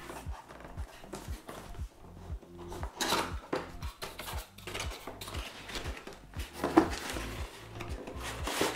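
Cardboard box handled and turned over on a wooden table: the cardboard rubs and scrapes, with a sharp knock about seven seconds in.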